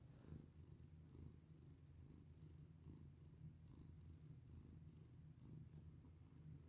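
Domestic cat purring faintly and steadily as it is stroked on the head and cheeks.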